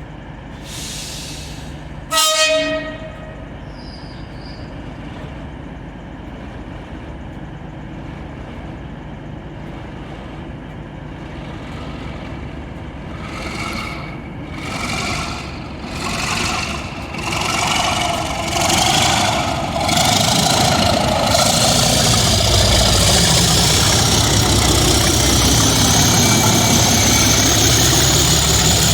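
A short horn blast about two seconds in, then two English Electric Class 37 diesel locomotives working in tandem opening up to pull away: the engines surge in waves about once a second and then settle into a loud, steady full-power run, with a high turbocharger whine rising in pitch through the last several seconds.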